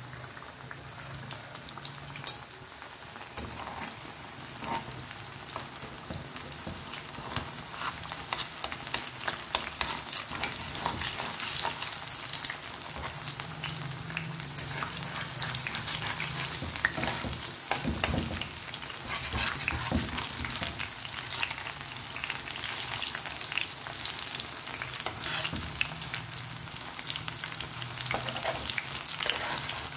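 Besan-battered eggs and potato slices deep-frying in hot oil: a steady sizzle full of fine crackling pops. A single sharp click about two seconds in.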